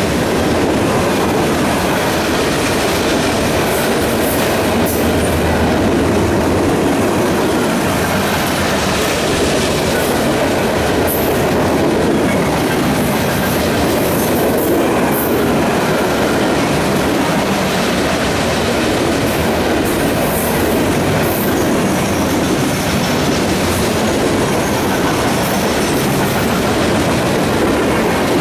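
Freight train cars rolling past close by, their steel wheels clattering over the rails in a steady loud rumble, with brief sharp high squeals now and then.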